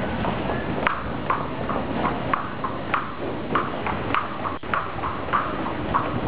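Footsteps going down concrete stairs, hard heels clicking about twice a second, with one sharper click about four and a half seconds in.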